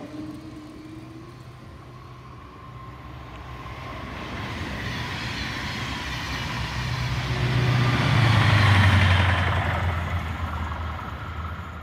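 A train passing by: a low rumble and rushing rail noise that build over several seconds, are loudest about two-thirds of the way through, then fade away.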